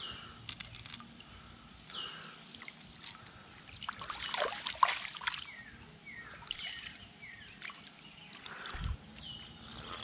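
Stream water splashing and trickling as a landing net holding a brown trout is lowered into the water and the fish released, loudest about four to five seconds in. A bird repeats short falling chirps throughout, and a low thump comes near the end.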